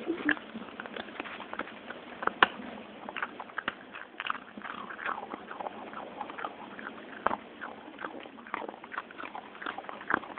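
Dog chewing treats picked up off a carpet, close to the microphone: an irregular run of sharp crunches and mouth clicks.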